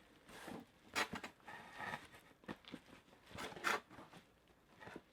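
Packaging being handled in an opened mystery box: a few short scraping, rustling strokes, the sharpest about a second in and the loudest near three and a half seconds.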